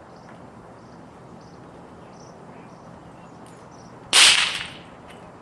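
A single sharp pop from a novelty noisemaker (party popper or snap pop) about four seconds in. A hissing tail follows and fades within a second.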